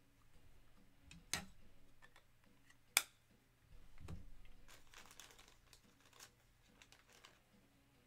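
Faint handling of trading cards and their packaging on a table: two sharp clicks, then a crinkly rustle with a soft thump, then a few lighter clicks.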